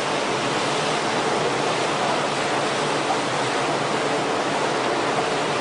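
Steady rush of churning seawater as rough waves surge along a ship's hull.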